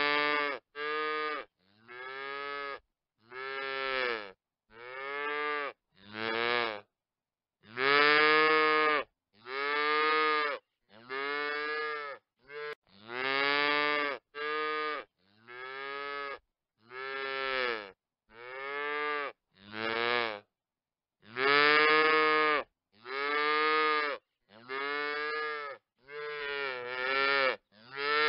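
Calves mooing, one call after another: about twenty calls, each roughly a second long and rising then falling in pitch, with short silent gaps between them.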